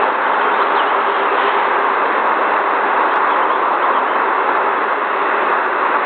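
Steady loud rushing noise with a faint low hum in it, with a few faint short high bird chirps in the first second and a half.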